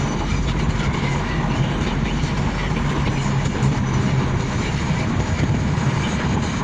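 Steady road and engine noise inside a moving car, with a low, even drone underneath.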